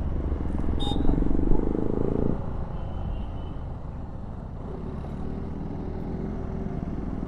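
Hero Xpulse 200 4V single-cylinder motorcycle engine running at low road speed with a low wind rumble. The engine note is strong for about two seconds, then drops as the bike slows.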